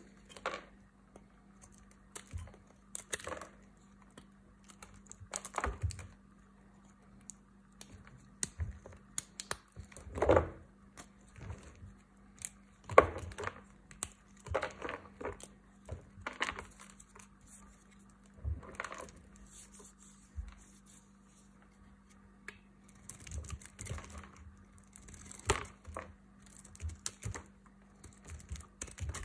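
Dry bar soap being cut and shaved with a utility knife blade and crumbled by hand: irregular crisp cracks and crunches as chunks and flakes break off, with short pauses between strokes.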